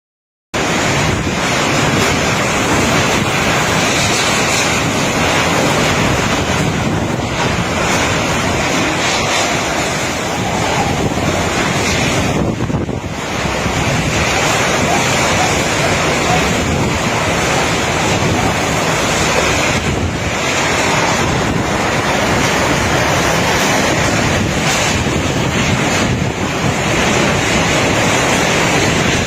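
Typhoon wind blowing hard and without let-up, buffeting the microphone with a dense rushing noise.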